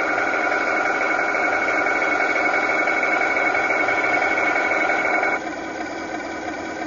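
Steady high-pitched whine of a 1/16 scale RC King Tiger tank's turret traverse drive as the turret turns. It cuts off about five seconds in, leaving the steady drone of the model's simulated engine idle.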